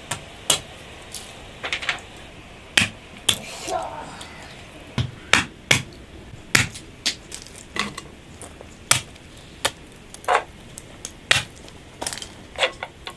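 Irregular sharp knocks, about one or two a second, of food being chopped or cracked by hand on a hard surface.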